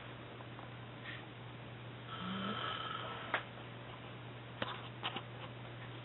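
A sleeping man snoring once, a raspy snore of about a second starting about two seconds in, over a steady low hum. A few sharp clicks follow in the second half.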